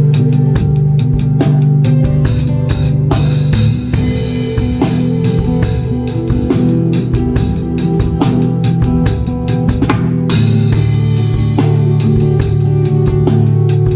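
Worship band playing live, led by a Pearl drum kit keeping a steady beat with bass drum and snare over sustained bass and guitar, with a cymbal crash about ten seconds in.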